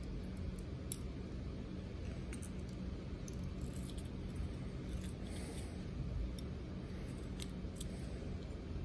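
Faint, scattered metallic clicks and taps from the brass plug of a Paclock PL410-PRO padlock being worked with a thin metal tool as the lock is taken apart. Under them runs a steady low hum.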